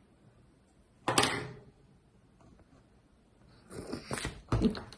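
Handling noise: a short rustle about a second in, then a quick run of clicks and knocks near the end.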